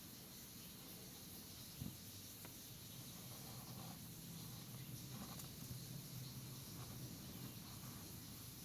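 Faint scratching of a pen on paper as a drawing is outlined, with a few light taps and a low steady hum.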